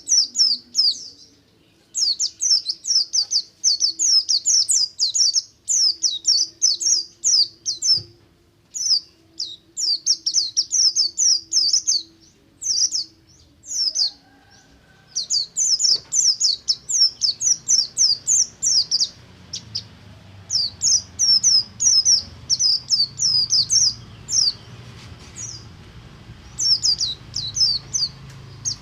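Pleci (white-eye) of the Buxtomi type singing its 'ngalas' song, a lure song for getting kept white-eyes to sing: rapid runs of high, downward-sliding chirps in bursts of a few seconds, broken by short pauses.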